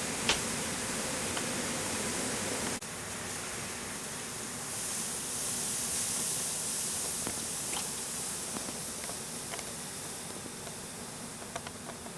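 Steady hiss of outdoor background noise, with an abrupt cut about three seconds in and a few faint ticks.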